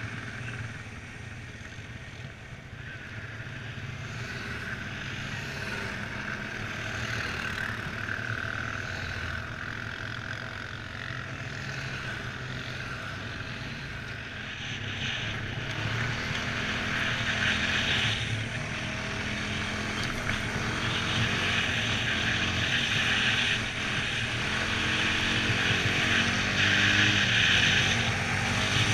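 Honda Foreman 500 ATV's single-cylinder engine running while riding, under a steady rushing hiss. Engine and hiss both grow louder from about halfway through.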